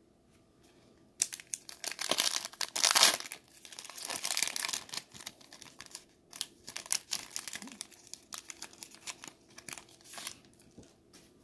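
A 2020 Mosaic football card pack wrapper being torn open and crumpled, a crackling and crinkling that is loudest about two to three seconds in and thins to scattered crackles.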